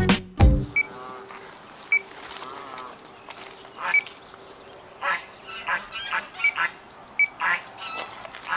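Waterfowl calling irregularly across the water, with several short high peeps in between and a faint steady hum underneath for most of it.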